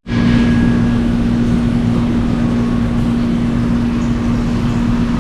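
Vehicle engine running at a steady, unchanging pitch under a loud, continuous rush of wind and road noise, as heard while riding along.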